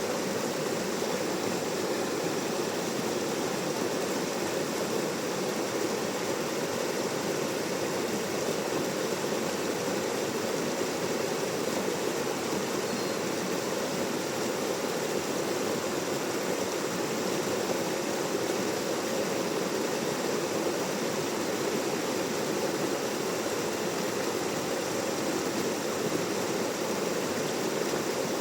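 Rain-swollen stream rushing steadily, a constant full rush of water.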